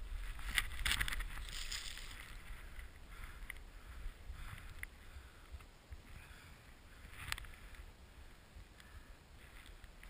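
Rider sliding and turning through deep powder snow, a swishing hiss that swells and fades, with low wind rumble on the body-mounted action camera's microphone. A few sharp clicks and scrapes stand out, the loudest about a second in and again about seven seconds in.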